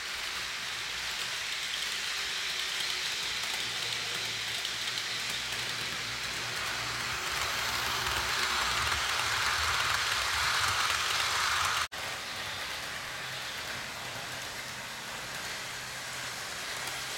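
HO scale model train running on its track: a steady rattling whir of metal wheels on rail with the motor's hum. It grows louder as the train passes close, then breaks off for an instant near the end.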